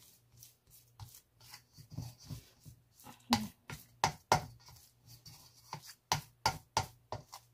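White plastic spoon patting and spreading oil over fish paste in a stainless steel mixing bowl: a string of irregular soft taps and scrapes, about two or three a second.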